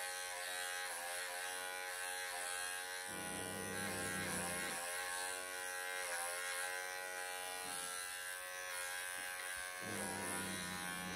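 A Wahl Bravura Lithium cordless pet clipper buzzing steadily as it shaves a long-haired cat's coat. A lower hum joins in twice, about three seconds in and again near the end.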